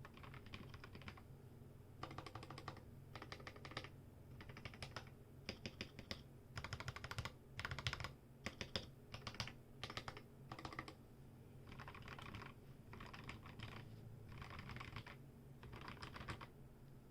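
Typing on a mechanical keyboard with lubed Gateron Yellow linear switches, an aluminium plate and MT3-profile ABS keycaps. The keystrokes come in quick bursts with short pauses between them, and the loudest bursts fall about midway.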